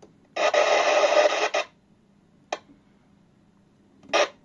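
Team Euro 3004UK FM CB radio's speaker giving a burst of static hiss lasting about a second while scanning through the channels, followed by a single sharp click, then a brief burst of hiss near the end.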